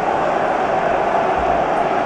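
Steady crowd noise of a packed football stadium, thousands of fans making a continuous din during open play.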